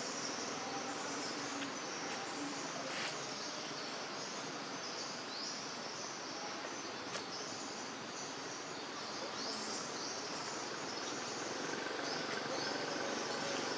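Insects chirring in a steady high-pitched band over a hiss of forest background noise, with a couple of faint clicks.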